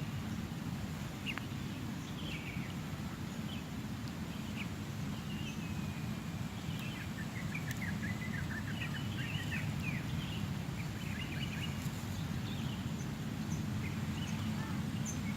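Small birds chirping and twittering on and off over a steady low rumble of outdoor background noise, the chirps thickest between about seven and ten seconds in.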